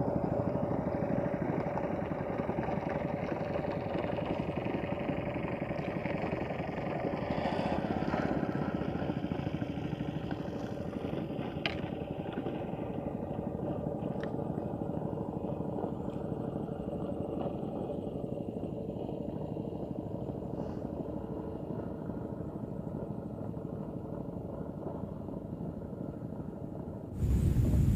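A small engine drones steadily, slowly fading as it moves away. A sudden louder low rumble comes in near the end.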